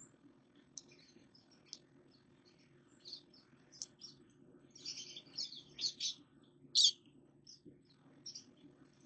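Small birds chirping in many short, high calls, busiest and loudest about five to seven seconds in, over a steady low hum.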